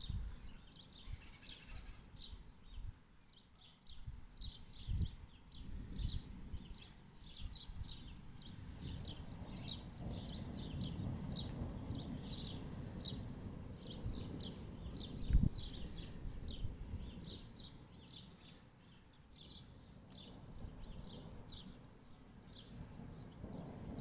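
A small bird chirping over and over, two or three short chirps a second. Distant thunder rumbles low in the background for several seconds in the middle, and a single sharp knock comes about two-thirds of the way through.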